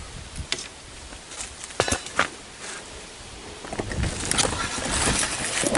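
A few sharp knocks and cracks, then, about two-thirds of the way in, footsteps rustling and crunching through undergrowth and dry palm litter.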